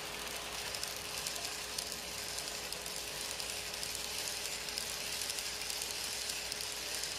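N-gauge model train running past on its track: a steady whir and fine rattle of the motor and wheels on the rails, growing a little louder about half a second in as the cars come by.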